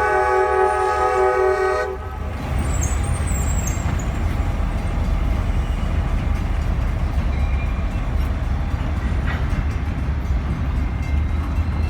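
Diesel locomotive air horn sounding a chord of several notes, cutting off about two seconds in. Then the EMD diesel locomotives and their train run past with a steady low rumble, and a brief high squeal comes soon after the horn stops.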